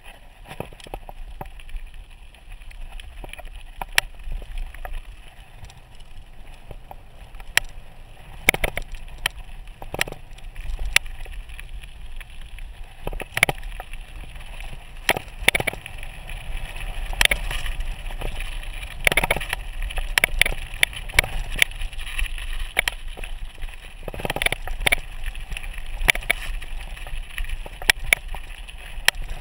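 Mountain bike rolling fast down a loose gravel road: tyres crunching over stones, with frequent sharp rattles and knocks as the bike jolts over bumps, under a steady low rumble. The rattling comes thickest in the second half.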